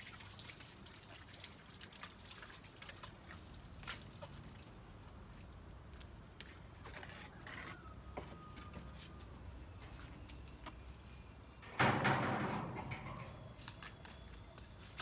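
Water dripping and trickling at a garden tap with a hose attached, with scattered small clicks. About twelve seconds in, a sudden louder noise starts and dies away over about a second.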